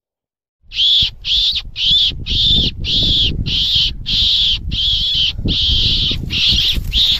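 Hand-held predator caller squealing in a quick, even series of about two calls a second, imitating a distressed rabbit to draw foxes in. A low rumble of wind and handling runs underneath. The calls start suddenly under a second in.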